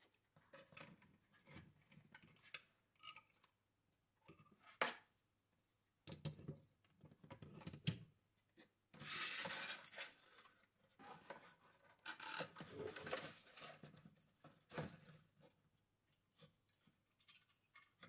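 Cardboard box and packing handled by hand while a tower CPU cooler is lifted out: irregular rustling and scraping, a sharp tap about five seconds in, and two longer, louder rustles around the middle.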